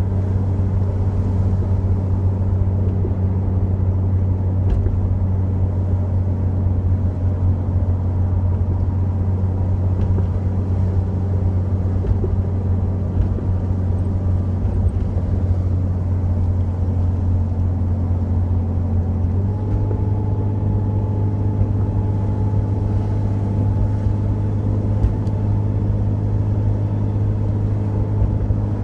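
Jeep Cherokee XJ driving, heard from inside the cabin: a steady engine drone over road noise. About two-thirds of the way in, the engine note steps up slightly in pitch and holds there.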